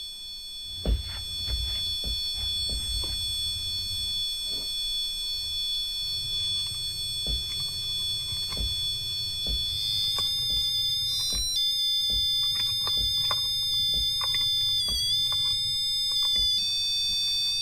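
A high-pitched electronic whine from a horror film's soundtrack: several steady high tones held together that step in pitch a few times in the second half and glide sharply upward at the end, over a low rumble with scattered knocks.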